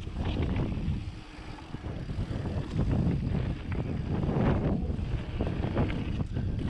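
Wind buffeting the microphone on a fast mountain-bike descent, with knobby tyres rolling over dirt and loose rock and the bike rattling over bumps. It eases briefly about a second in.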